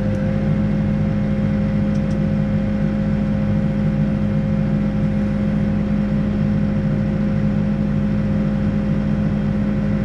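Backhoe's diesel engine running at a steady speed with the boom and bucket at rest: a constant, unchanging hum with no revving, heard close up from the operator's cab.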